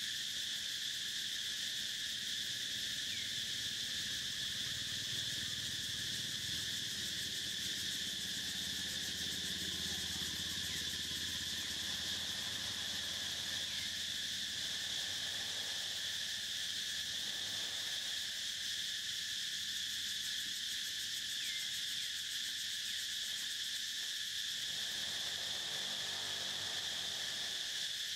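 A steady chorus of insects: a continuous high-pitched drone in two pitches that holds unchanged throughout.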